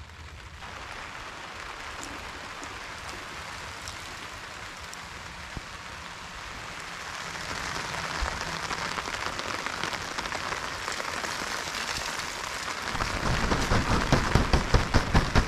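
Rain falling on a plastic tarp canopy overhead, a steady hiss that thickens about halfway through, then heavier, close drops hitting the tarp loudly near the end.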